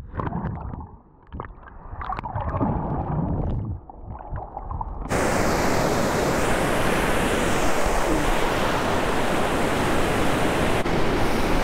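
Muffled water sloshing and gurgling, as heard with the microphone at or just under the waterline in a breaking wave. About five seconds in it opens up suddenly into a loud, steady rush of surf breaking around a wader.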